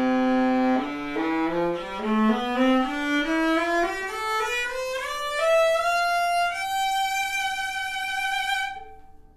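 A 16.25-inch viola made by Richard Welde in 1996, bowed solo. It plays an upward scale, climbing note by note from a low held note to a long high note that fades away near the end.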